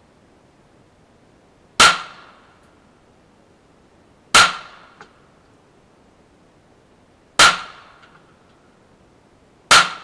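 Four shots from a Canik TP9 9mm semi-automatic pistol, fired singly two to three seconds apart, each a sharp crack followed by a short echo. A faint click comes shortly after the second shot.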